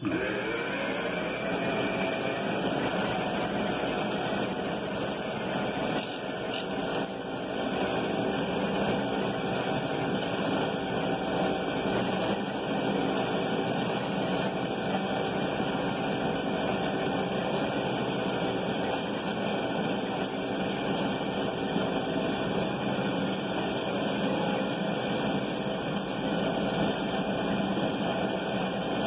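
Electric motor of a homemade kite-line winding machine starting up, rising in pitch over the first second, then running steadily as it belt-drives a large spool winding kite line.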